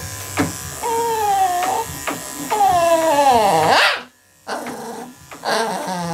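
A small dog whining in long cries that bend up and down in pitch, over the buzz of electric dog clippers. Everything drops out briefly just past the middle.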